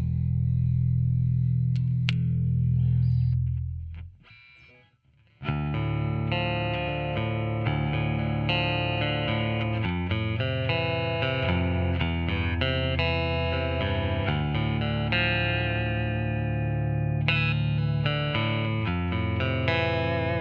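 Squier Bass VI, a six-string baritone bass, played through a Line 6 Helix amp modeler. A low chord rings and fades away over about the first four seconds. After a short pause, a busy run of quickly picked notes goes on to the end.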